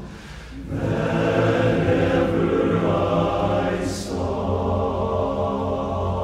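Men's barbershop chorus singing a cappella in held chords, with a short break for breath just after the start and a sharp sung 's' about four seconds in.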